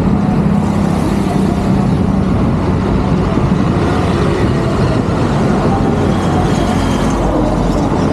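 Steady road traffic on a bridge, cars and heavier vehicles going past, with a constant low engine hum under the noise of the tyres.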